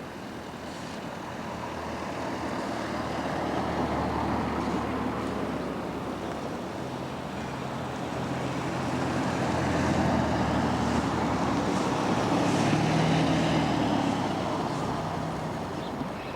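Road traffic on a city street: motor vehicles driving past, the engine and tyre noise swelling as one passes about four seconds in and a louder one passes around ten to thirteen seconds in.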